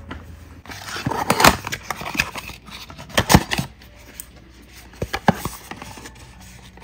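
Small cardboard gift box being pulled out of a cardboard advent-calendar drawer and handled: rustling and sliding card with a few sharp taps and knocks, the loudest about a second and a half in and again about three seconds in.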